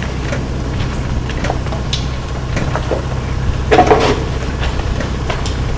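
Steady low mechanical hum of machinery running, like mill machines droning, with scattered footstep clicks on a gritty floor and a brief louder clatter about four seconds in.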